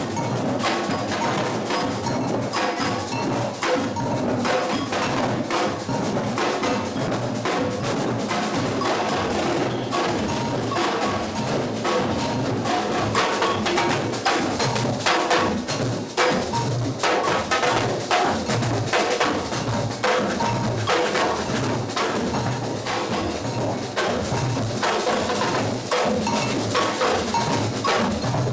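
Batucada drum ensemble playing a steady rhythm: deep drum beats under a dense run of sharp strikes.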